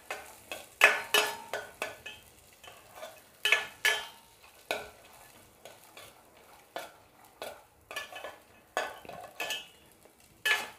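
A steel spoon stirring sweet corn kernels sautéing in butter in a stainless steel pan: irregular scrapes and clinks of the spoon against the pan, about one every second or so, over a faint sizzle of frying.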